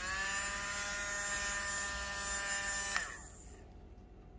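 Small battery motor of an electric multi-barrel bubble gun running: it whirs up to a steady whine over the first moment, then a click about three seconds in and the motor winds down and stops.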